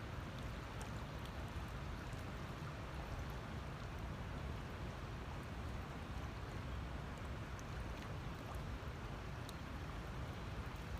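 Steady rush of the New River's swift current flowing past the bank.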